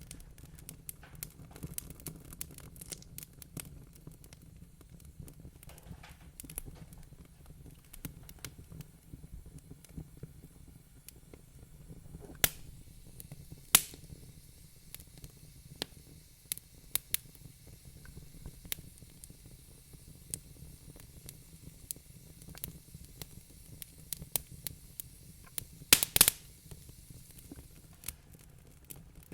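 Wood fire in a fireplace crackling, with a steady low rumble under scattered small pops. Sharper pops come about halfway through and again in a quick cluster near the end.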